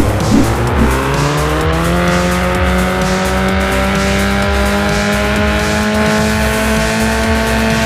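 Race car engine sound revving up: its pitch rises over about two seconds, then holds nearly steady at high revs.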